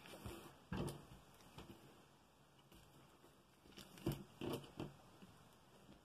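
Faint rustling and soft taps of a paper pattern and satin fabric being smoothed and arranged by hand on a tabletop, with a few short louder knocks about a second in and again around four to five seconds in.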